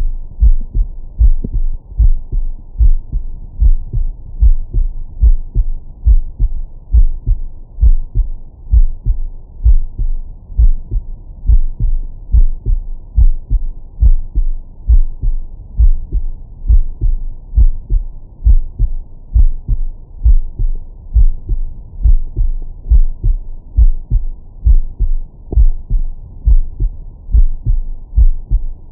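A man's heartbeat heard through a Stemoscope digital stethoscope on the chest: a steady run of deep, bass-heavy lub-dub thuds. The sound is filtered to its 20–1000 Hz setting, so it has no treble.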